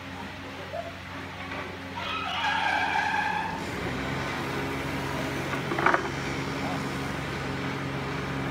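Steady machine hum, with a deeper hum joining about four seconds in. A high-pitched drawn-out tone lasts about a second and a half, about two seconds in. A single sharp knock near six seconds fits the wooden door panel being set down on the floor.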